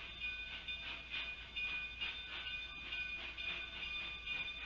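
Narrow-gauge passenger cars rolling past at low speed, the steel wheels squealing in steady high tones on the curve, with a run of clicks from the wheels crossing rail joints.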